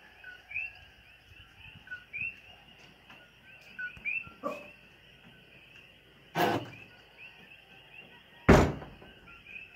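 Chorus of coquí frogs calling, many short upward-hooking 'co-KEE' chirps overlapping steadily. Two loud thumps cut across it, about six and a half seconds in and near the end, the second the louder.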